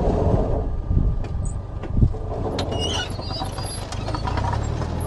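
Road traffic: motor vehicle engines with a steady low rumble and a few thumps.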